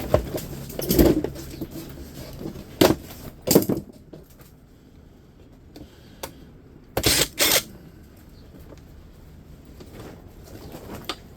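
Parts of a dehumidifier being handled and set down during dismantling: a handful of separate knocks and clatters in the first four seconds, then a quick double knock about seven seconds in, with quiet between.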